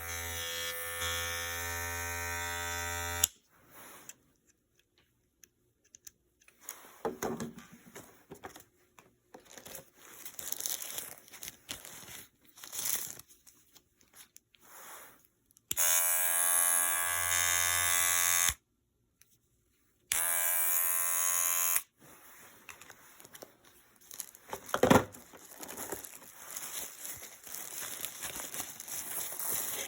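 Electric hair clippers switched on and buzzing steadily three times: once for about three seconds at the start, then two shorter runs past the middle, each cut off abruptly. Between the runs come irregular rustling and handling noises, with a sharp knock near the end.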